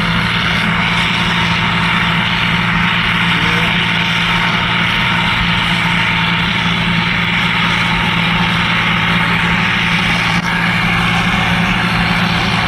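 A vehicle engine running steadily close by, a constant low drone with an unchanging hum.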